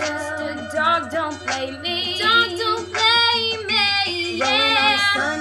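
Two young women singing an R&B melody together without words, with wavering vocal runs and long held notes.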